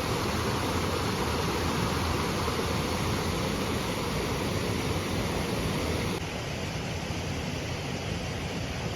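River water rushing steadily, a continuous hiss with a strong low rumble. About six seconds in it abruptly becomes a little quieter and less hissy.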